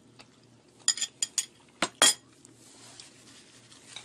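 Metal fork and spoon clinking against plates while eating: a quick run of four clicks about a second in, then two more, the last one the loudest, a little after two seconds.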